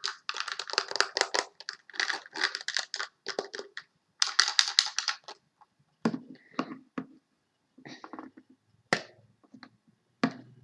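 Close-up handling of packaging: rapid, dense clicking and crackling for about five seconds, then a handful of separate taps and knocks.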